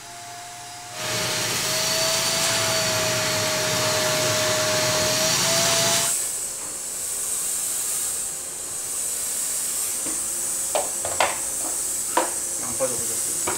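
Handheld fogging machine blowing out dense fog: a loud steady hiss over a motor whine. About six seconds in it changes to a steadier, higher hiss, with a few sharp clicks near the end.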